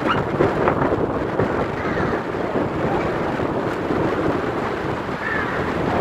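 Strong gusting sea wind buffeting the microphone, a loud continuous rumble that fills the sound.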